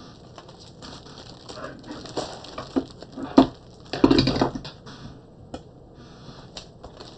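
Comic books being handled at a desk: irregular rustling and sliding as they are picked up, turned over and laid on a stack, with a sharp tap about three and a half seconds in and a louder rustle just after four seconds.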